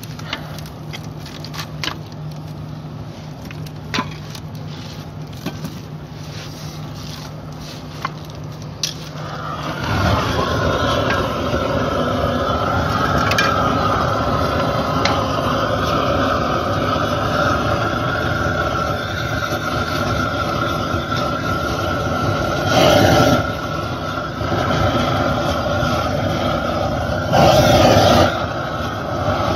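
A shovel scraping and tapping on concrete, then about ten seconds in a propane gas burner starts and runs steadily, heating bitumen in a tin can, with two brief louder flare-ups near the end.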